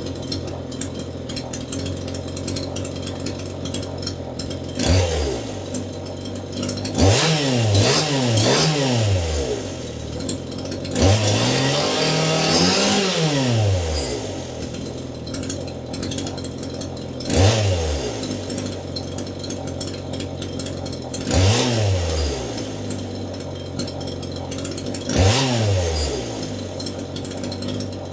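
Two-stroke chainsaw running unloaded, with no wood being cut. It idles and is revved up and back down about eight times, with one longer rev near the middle.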